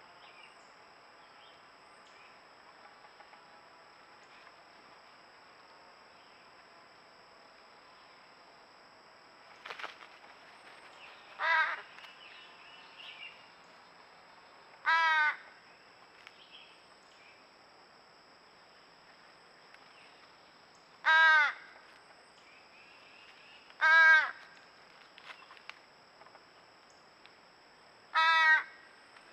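Crow cawing: five loud single caws, each about half a second long, spaced a few seconds apart, starting about a third of the way in.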